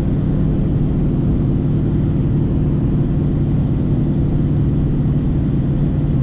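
Car engine and road noise while driving: a steady low hum that holds one pitch, over a constant rumble.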